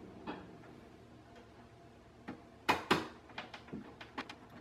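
Screwdriver turning a screw into the graphics card's metal slot bracket on the PC case: a faint click early, two sharp clicks near the middle, then a run of light ticks.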